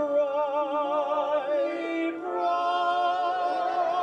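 Show tune: a singer holds long notes with a wide vibrato over steady instrumental accompaniment. The first note gives way to a second, higher held note about two seconds in.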